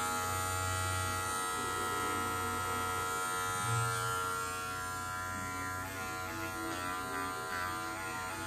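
Wahl Magic Clip Cordless hair clipper running: a steady electric buzz from its motor and blade. The pitch wavers slightly from about six seconds in.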